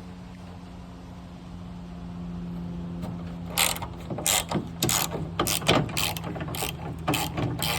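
Ratchet wrench working the trunk latch bolts: after a steady low hum, a run of sharp ratcheting strokes starts about three and a half seconds in, irregular, about two a second.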